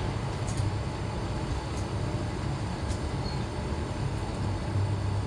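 A steady low background rumble, with a few faint ticks as a kitchen knife slices peeled bananas into a steel bowl.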